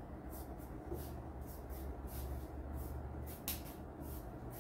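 Quiet room tone: a low steady hum with faint soft rustles and a light tick about three and a half seconds in.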